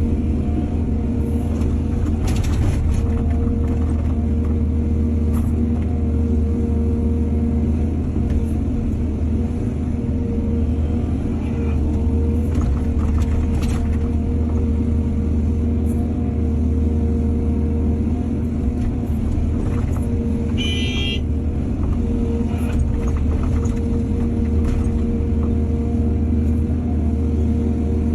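Excavator diesel engine running steadily under load, with a few brief knocks and a short high-pitched squeal about three quarters of the way through.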